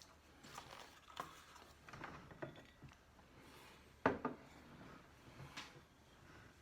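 Soda bottles being handled on a table: light knocks and rubbing, with one sharper knock about four seconds in.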